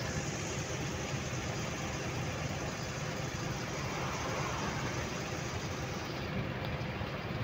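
Steady engine and road noise heard from inside a moving vehicle on a highway. About four seconds in, a passing car's rush swells briefly and fades.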